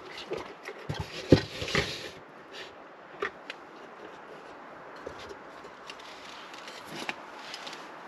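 Knocks, rubbing and light clicks of objects being handled, with a close cluster between about one and two seconds in and scattered single clicks after it, over a steady background hiss.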